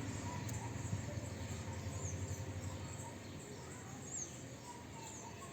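Low steady hum that fades over the first few seconds, with a few short, high bird chirps.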